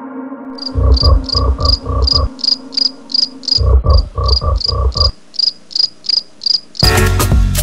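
Regular high-pitched insect-like chirping, about three chirps a second, with two runs of low thumps beneath it. Loud music comes in near the end.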